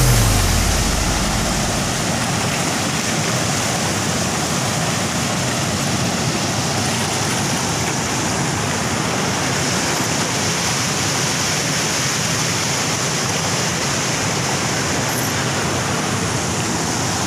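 River rapids and waterfall, white water rushing over and between rocks in a steady, even roar. A deep bass note dies away in the first couple of seconds.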